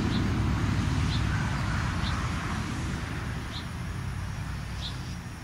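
Low rumble of road traffic, slowly fading, with a faint high chirp repeating about once a second.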